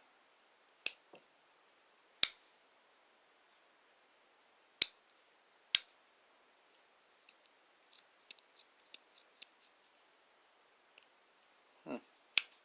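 Buck 252 Trunk folding pocket knife being flipped open and closed: five sharp metallic clicks of the blade snapping into place, with lighter ticks between them and a brief slide just before the last click.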